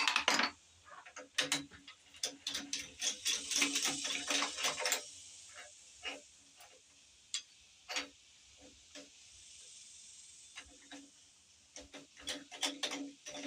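Socket ratchet clicking in short, irregular runs as bolts are backed out of the engine.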